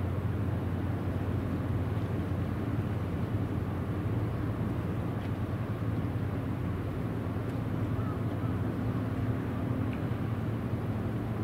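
A ship's engine drones steadily as a constant low hum, over a wash of wind and water noise.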